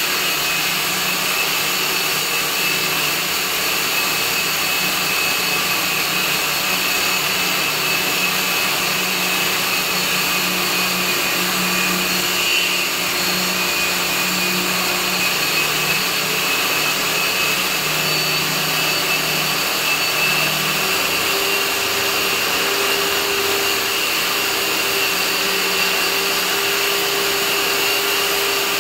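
Handheld electric core drill running steadily with a high motor whine, its core bit cutting into the sump's concrete wall. About two-thirds of the way through, its low hum shifts higher.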